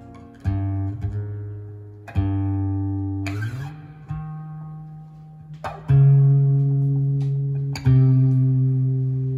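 Slow instrumental guitar intro to a ballad, played back through a JVC EX-HR7 mini stereo and its wood-cone speakers. Single plucked notes over deep bass notes ring out and fade, a new one every second or two, with a sliding note a little past three seconds in.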